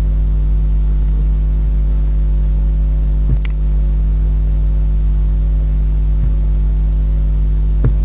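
Steady loud electrical hum with a buzz of evenly spaced overtones and a faint hiss on the recording, with one short click about three and a half seconds in.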